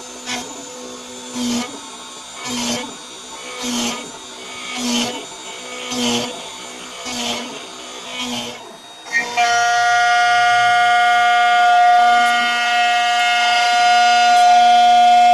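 CNC milling machine's spindle whining as an end mill cuts a metal plate, the cutting noise swelling and fading about once a second. About nine seconds in it changes to a louder, steady high whine that holds.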